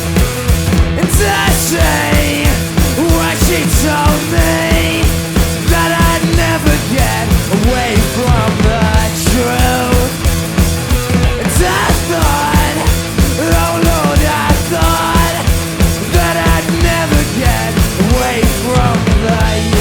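A rock band playing live, loud and driving, with a steady drum beat under bass, guitars and a melodic line that moves up and down.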